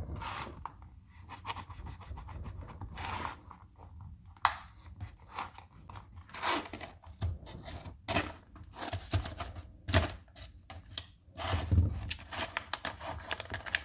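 A knife cutting into a plastic blister pack and the packaging being torn open, with irregular scrapes and sharp clicks.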